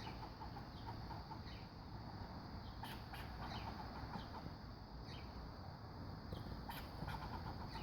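A squirrel calling: a faint series of short, repeated chattering calls.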